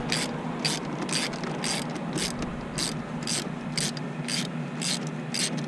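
Hand ratchet with a long 10 mm socket clicking in a steady rhythm, about two to three clicks a second, as it backs out a long-threaded intake bolt, over a steady low hum.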